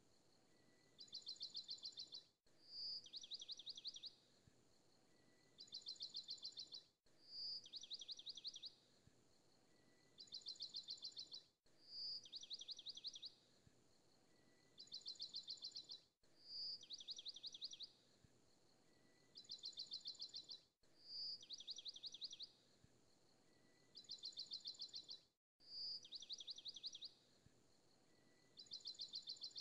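High bird-like chirping trill on a repeating loop: two quick bursts of rapid chirps, each about a second long, recurring about every four and a half seconds with the same pattern each time.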